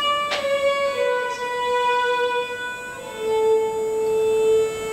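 Solo violin playing slow, long bowed notes stepping down in pitch, the last one held from about three seconds in. A single short click sounds shortly after the start.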